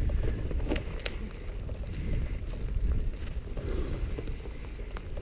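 Mountain bike rolling over rock and dirt trail, with a steady low rumble of wind on the microphone and tyre noise, and a few sharp clicks and rattles from the bike over bumps.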